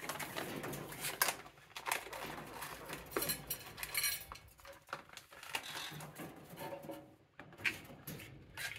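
Light, irregular clinks and rattles of dried black soldier fly larvae being shaken into a small stainless steel bowl.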